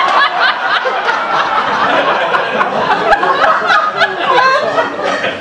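Audience laughing at a joke, many voices at once.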